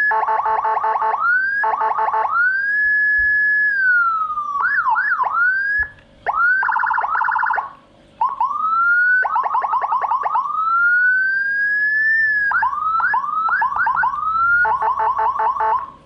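Whelen HF 60-watt electronic siren module sounding through a chrome horn speaker, switching between tones: slow rising and falling wails, quick yelp chirps, and a fast pulsing warble. There are two brief breaks near the middle.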